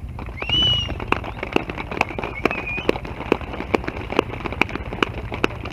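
A steady low rumble of many dirt-bike engines idling together on a race start grid. A regular ticking of about two clicks a second runs through it, and a short high whistle-like tone rises and falls about half a second in.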